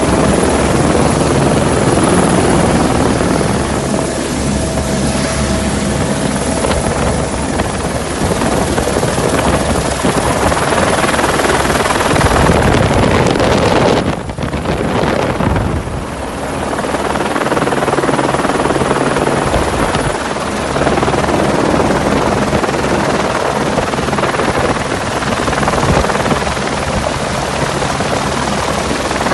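Rescue helicopter hovering close overhead: a loud, steady rotor and engine noise, easing briefly about halfway through.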